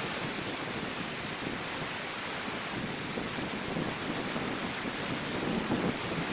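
Ocean surf breaking on a sandy beach: a steady rush of waves.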